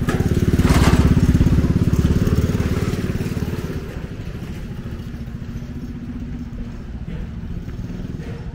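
An engine running close by, loudest about a second in, then easing to a lower steady rumble.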